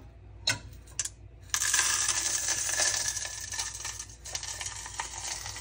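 Dishwasher regeneration salt being poured through a funnel into the dishwasher's salt reservoir. Two light clicks come first, then about a second and a half in a dense, grainy rattle of salt crystals runs for about two and a half seconds and thins out near the end.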